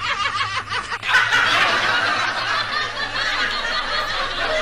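Laughter: a quick run of rhythmic 'ha-ha-ha' laughs, then from about a second in a louder, denser wash of laughter that holds steady to the end.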